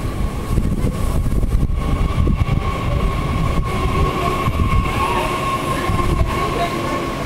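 SNCF AGC regional multiple-unit train moving through the station on a far track: a steady low rumble with a steady high whine, and wheels clicking now and then over the rails.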